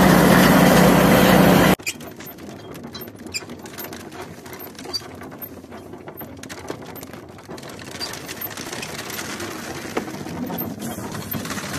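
A soybean thresher's engine running loudly, cut off abruptly about two seconds in. Then a wooden tōmi winnowing fan being hand-cranked: a dry, fast ticking and rattling of its crank, gears and fan as the threshed soybeans are sorted from the chaff, growing a little louder toward the end.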